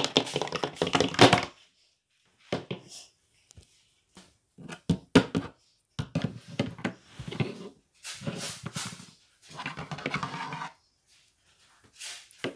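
Short bursts of animal-like vocal noises, such as whinnies and snorts, made by a person for toy horses. Between them come a few sharp taps of hard plastic horse figurines on a wooden floor.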